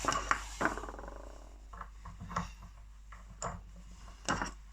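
Metal clicks and taps of a 17mm socket or box spanner being fitted onto the boiling-water tap's cartridge, with a short fast rattle about a second in and a sharper click near the end.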